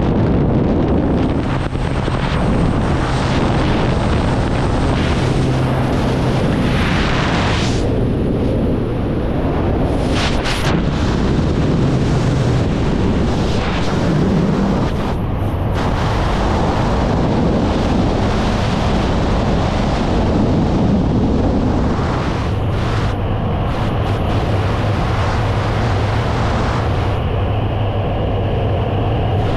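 Loud, steady rush of freefall wind buffeting a helmet-mounted camera's microphone during a skydive. At first the Twin Otter's propeller and engine noise at the open door is mixed in.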